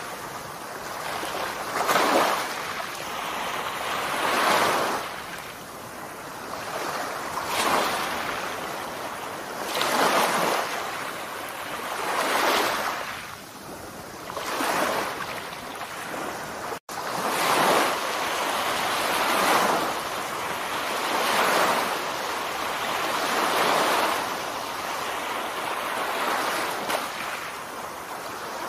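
Small surf washing onto a flat sandy shore, swelling and falling away about every two to two and a half seconds, with a momentary cut in the sound about two-thirds of the way through.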